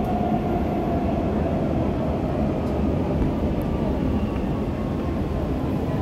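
Dubai Metro Alstom train heard from inside the carriage while running through an underground tunnel: a steady rumble of wheels on rails with a faint whine that drifts slowly in pitch.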